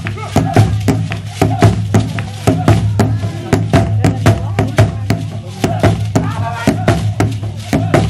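Zulu traditional dance drums beating a fast, steady rhythm of about four strokes a second, with voices over it.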